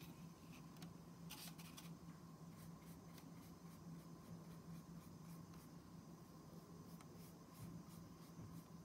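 Faint, light strokes of a paintbrush applying acrylic paint, with a short scratchy patch about a second in and then soft, irregular dabs about two a second, over a low steady hum.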